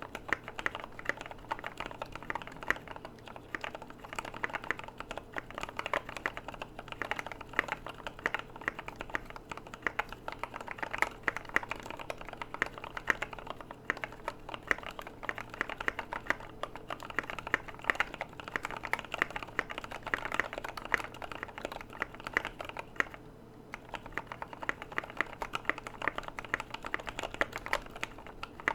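Typing on a mechanical keyboard with lubed Gateron Yellow linear switches, MT3 keycaps, a polycarbonate plate and a foam-filled KBD75v2 case. Keystrokes come fast and continuously, with a brief pause about four-fifths of the way through.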